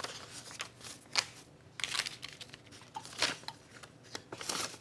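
Paper banknotes and binder cash envelopes rustling and crinkling as they are handled, in several short rustles.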